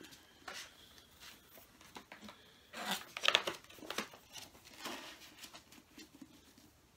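Paper rustling and crinkling as a hardcover book's dust jacket is handled and its pages turned, in short irregular rustles, the loudest about three seconds in.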